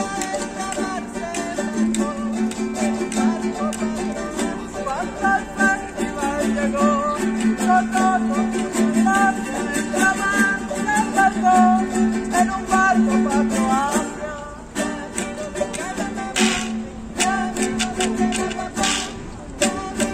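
Mexican folk music played live: a small guitar-like instrument strummed steadily under a wavering melody line. A few short, noisy percussion strokes come near the end.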